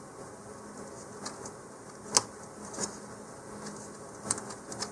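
Light clicks and taps of thin laser-cut wooden pieces being handled and fitted together: a disc being worked down onto three interlocking legs. A handful of separate clicks, the loudest a little over two seconds in.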